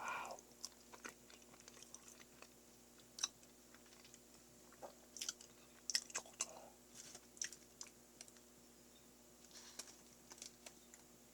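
A person chewing a mashed Choco Pie mixture up close: scattered short mouth clicks and smacks with pauses between them, over a faint steady hum.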